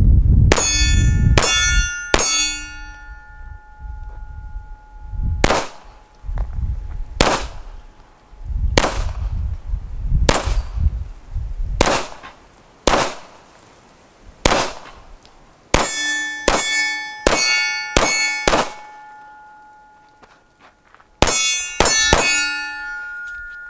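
9mm SIG Sauer P226 Legion SAO pistol firing about twenty shots at AR-500 steel targets, many hits answered by the plates ringing with a clear clang. A quick string of three opens, then single shots come about every second and a half, then two faster strings near the end.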